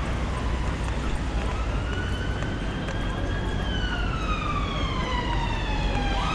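Emergency vehicle siren wailing in slow sweeps: rising for about two seconds, falling for nearly three, then rising sharply again near the end. Underneath is a steady hiss of rain and street noise.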